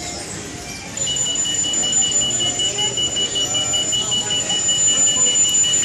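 A steady, high-pitched electronic tone like an alarm or warning beep starts about a second in and holds unbroken.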